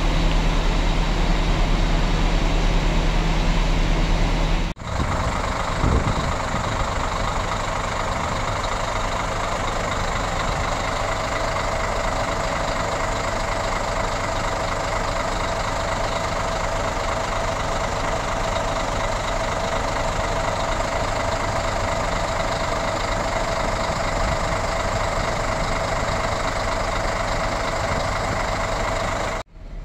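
Diesel bus engine idling steadily with a deep low hum. About five seconds in it cuts to a Scania coach idling at its tailpipe: a steady drone with a constant tone riding over it.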